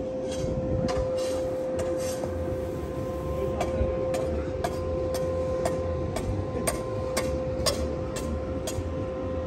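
A steady mechanical hum holds one pitch throughout, with a low rumble under it. Sharp clicks and taps land about once or twice a second, from work on a paving site.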